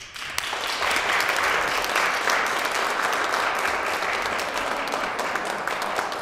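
Audience applauding, starting suddenly and building to full strength within the first second, then steady.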